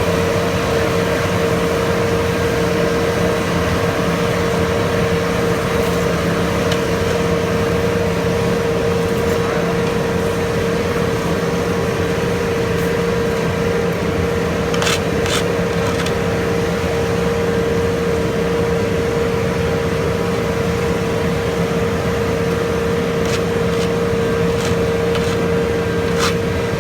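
Engine of heavy paving machinery running at a constant speed with a steady hum, with a few short clicks about halfway through and again near the end.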